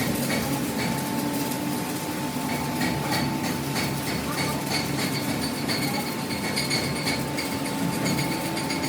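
Steady workshop machinery noise: a constant thin whine over a low hum, with scattered metallic clicks and taps.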